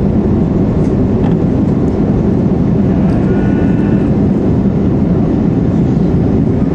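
Steady cabin noise inside an Airbus A330-200 airliner on approach to land: the low, even roar of the engines and the airflow around the fuselage.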